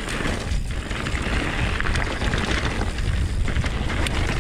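Mountain bike descending a gravel singletrack at speed, heard from a bike-riding action camera: wind rumble on the microphone over the steady crunch of tyres on loose dirt, with small clicks and rattles from the bike.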